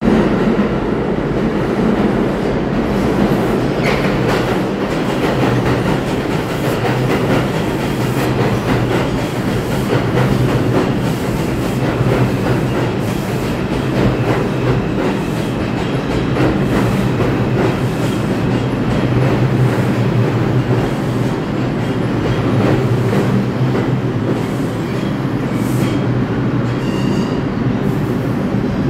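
An R142 New York City subway train pulls into an underground station. Steel wheels rumble and clatter over the rails without a break, with brief high wheel squeals near the start and again near the end as the train slows to a stop.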